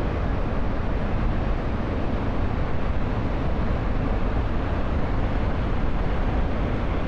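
A large waterfall's falling water rushing steadily: a dense, even noise, heaviest in the low end.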